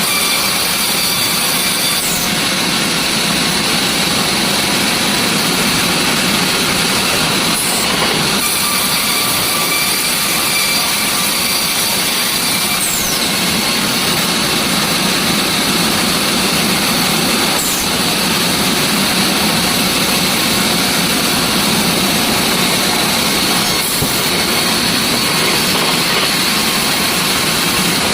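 Sawmill machinery running steadily: a loud, continuous mechanical noise with a steady high whine.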